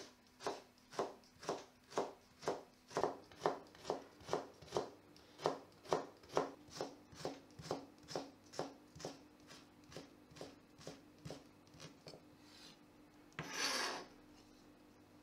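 Chef's knife cutting peeled ginger into julienne on a plastic cutting board: steady knocks of the blade on the board about two a second, growing softer toward the end. Near the end comes a short scrape as the blade pushes the cut strips together.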